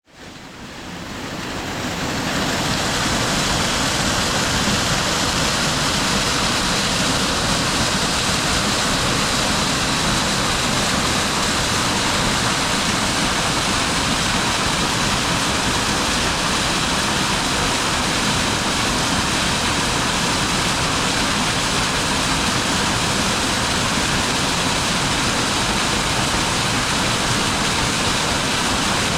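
Waterfall: a steady, even rush of falling and splashing water, fading in over the first couple of seconds.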